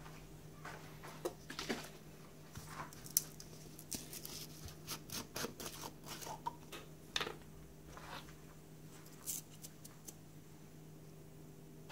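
Faint clicks and rustles of a plastic bottle of layout blue being handled and its screw cap twisted off, over a steady low hum.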